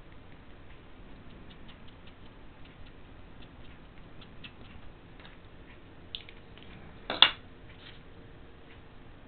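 Faint scattered ticks and taps as a rubber stamp and paper are handled on a wooden table, then a single sharp knock about seven seconds in, much louder than the rest.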